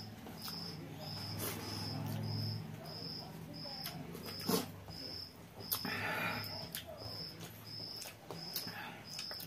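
Eating sounds from people eating rice and curry by hand: chewing and lip smacking, with sharp clicks of fingers and food against steel plates. A short high chirp repeats about twice a second throughout.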